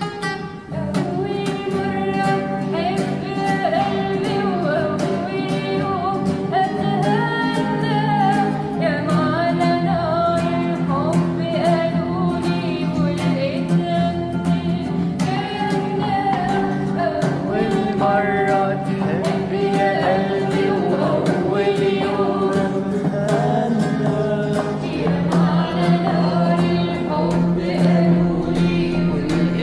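Singing a melody with long, wavering held notes over a strummed acoustic guitar.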